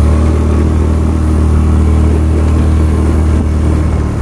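Motorcycle engine running steadily at low revs with a deep, even note, easing off near the end.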